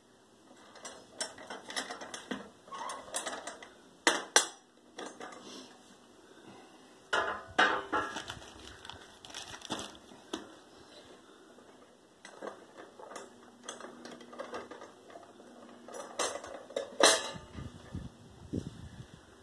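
Sheet-metal paper log press clanking and clicking as its metal levers and plates are worked and taken apart to free a pressed log of wet paper, with several louder metal knocks.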